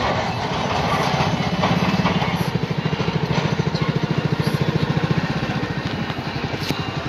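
An engine idling with a rapid, even chugging.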